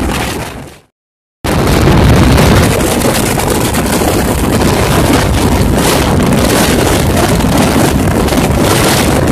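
Wind rushing over the microphone and the rumble of a fast-moving express train, heard from the open doorway of a coach. Near the start the noise fades out, goes silent for about half a second, then cuts back in abruptly.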